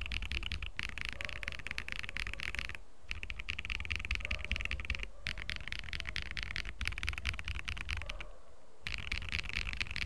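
Fast typing on a Cheap60 mechanical keyboard with Glorious Panda tactile switches and ePBT keycaps, modded with PE foam and the Tempest mod: rapid keystroke clicks in runs of a second or two, with short pauses between them.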